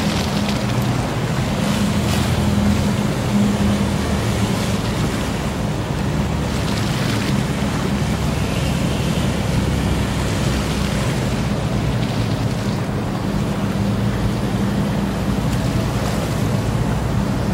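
Small police patrol boats' engines running at speed with the rushing wash of their wake. A steady low engine hum is clearest for the first few seconds, after which water noise fills in over it.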